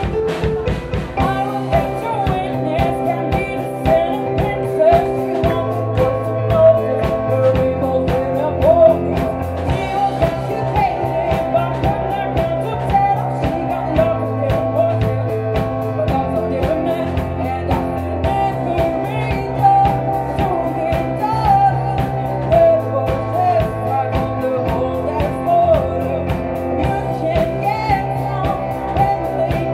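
A live band playing a song: a woman singing into a microphone over an electric keyboard and a drum kit keeping a steady beat.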